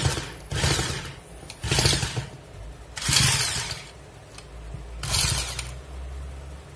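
Electric drill triggered in about five short bursts, each half a second or so, spinning a homemade wooden reciprocating-saw mechanism that rattles rapidly with each burst.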